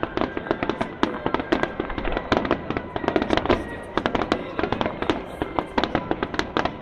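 Fireworks going off in rapid succession: a dense, continuous run of sharp bangs and crackles, several a second.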